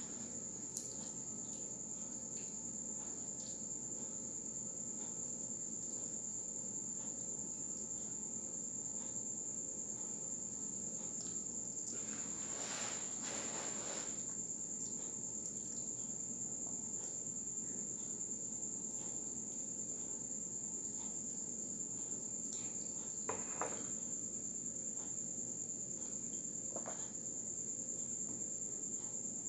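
Soft crunching and chewing of crispy fried banana spring rolls (turon), most noticeable about halfway through and again a little later. A steady high-pitched tone runs underneath.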